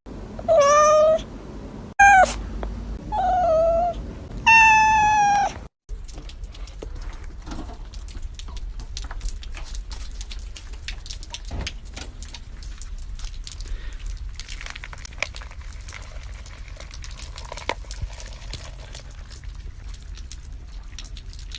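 A cat meowing four times in drawn-out calls during the first six seconds, some of them bending in pitch. After that only faint ticking and crackling noises remain.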